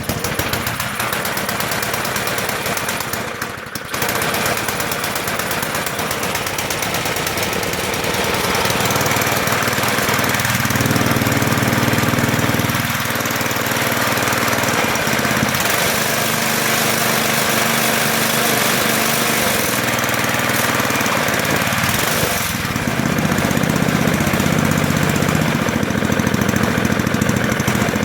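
1980s MTD Snow Flite 524 snowblower's Tecumseh four-stroke engine running on choke just after a cold start at about 20°F. It stumbles briefly about three seconds in, then settles into a steady, loud run.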